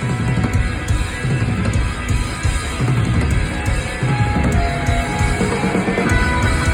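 Live heavy metal band playing loudly: distorted electric guitars over a pounding drum kit and bass.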